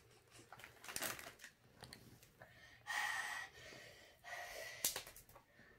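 A person breathing sharply in and out through the mouth, a loud hiss of air about three seconds in, to cool a mouth burning from a spicy chip. A few light crinkles of a chip bag come early on.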